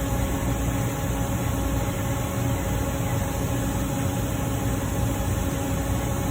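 Steady mechanical drone: a low rumble under an even hiss, with a few steady hum tones.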